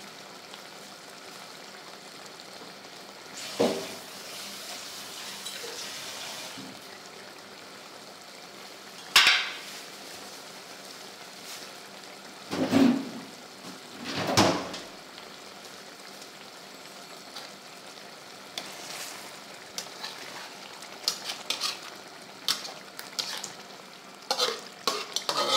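Catfish curry simmering and sizzling in a metal wok, with a slotted metal spatula scraping and knocking against the pan a few times, the loudest about nine seconds in. Near the end come quicker, shorter clicks of metal on metal.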